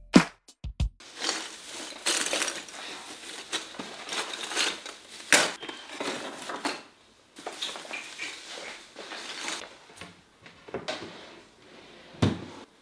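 A clear plastic bag full of Christmas baubles being handled and pulled out of a tote bag: the plastic crinkles and the baubles clink against each other in irregular bursts, with one sharper click about five seconds in.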